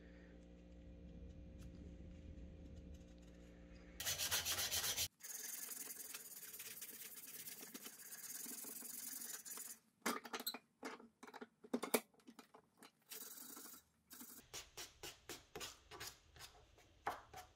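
Sandpaper rubbing on a carved poplar-wood lure body. It starts as a steady rasping of back-and-forth sanding with a strip, then turns into separate hand-sanding strokes, several a second, near the end. A loud burst of noise comes about four seconds in, after a faint hum.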